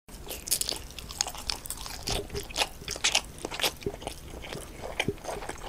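Close-up crunching and chewing of crispy food, a quick irregular run of crackling bites.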